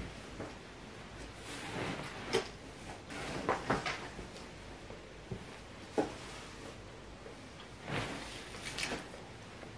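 Clothes being lifted and dropped onto a pile on cardboard moving boxes: irregular fabric rustling and swishing, with a few sharp taps and knocks against the cardboard.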